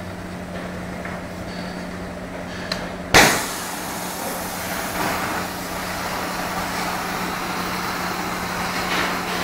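CNC plasma cutter: a steady machine hum, then about three seconds in a sharp crack as the arc fires, followed by a continuous hiss of the arc cutting.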